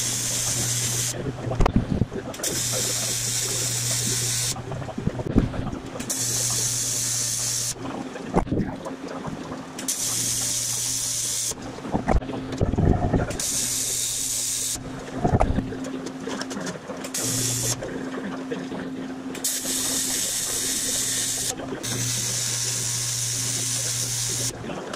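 AC TIG welder arc buzzing on aluminium body panels, struck and stopped in about eight short welds of one to two seconds each. Sharp knocks and clatter of handling fall in the pauses between welds.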